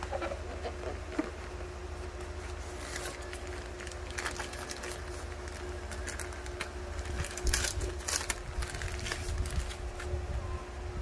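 Packaging being handled by hand: a cardboard box insert slid and shifted, then a thin plastic bag crinkling and rustling in irregular crackles as it is opened and a cable is pulled from it, the crinkling densest toward the end. A faint steady hum runs underneath.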